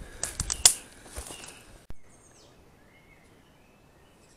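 Rustling and snapping of brush and footsteps pushing through dense undergrowth, with a handful of sharp cracks in the first two seconds. It then drops to quiet woodland ambience with small birds chirping.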